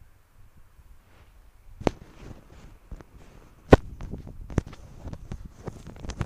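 Spatula knocking and scraping against a wok while a big heap of fried noodles is stirred and turned. There is a sharp clack about two seconds in and a louder one just before the middle, with lighter irregular taps between.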